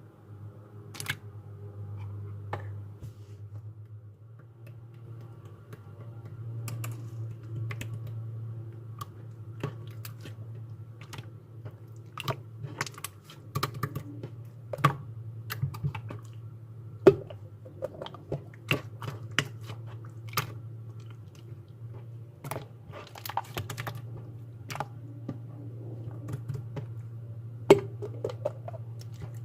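Slime squished and pressed by hand, giving irregular sharp clicks and pops that come more often in the second half. A steady low hum runs underneath.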